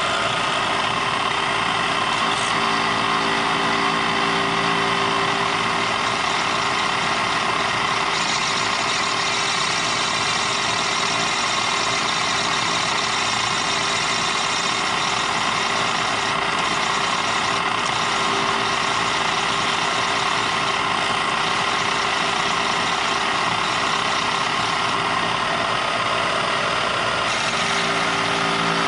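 Bridgeport vertical milling machine running at about 2800 RPM with a 1/4-inch four-flute carbide end mill taking light cuts around the edge of a plate, while a cordless drill driver turns the rotary table's crank shaft. A steady, unbroken machining noise with a few held tones in it.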